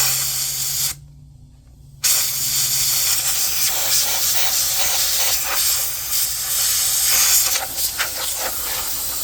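Compressed air blowing dust out of an iMac's fan and interior: a hiss of about a second, a brief pause, then one long steady blast lasting about seven seconds.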